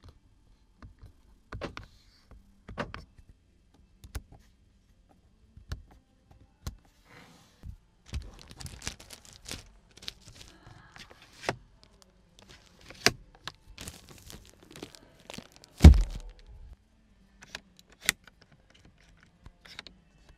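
A string of plastic clicks, knocks and handling noises as the interior controls of a new SUV are worked by hand: window switches, the sun visor and an air-vent slider. One loud thunk comes about 16 seconds in.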